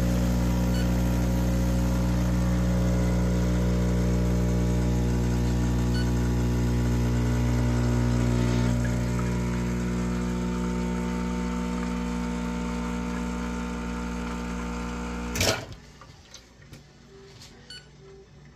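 Rocket espresso machine's pump running as it pulls a shot of espresso, a steady hum that eases slightly from about nine seconds in. About fifteen seconds in the pump shuts off with a short sharp burst, leaving only faint drips into the cup.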